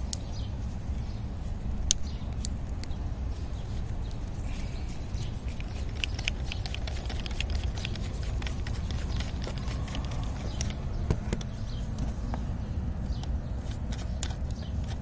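Handling noise from a camera being moved around and repositioned in a car's engine bay: a steady low rumble with scattered light clicks and knocks.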